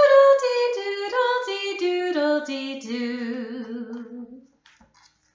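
A woman singing unaccompanied: the rooster's refrain of the children's song, a phrase of short notes stepping down in pitch and ending on a long held note with vibrato. The singing stops about four and a half seconds in.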